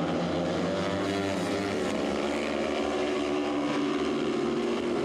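Speedway motorcycles' 500 cc single-cylinder methanol engines running at race speed as the riders lap the track, a steady layered engine note with slight rises and falls in pitch.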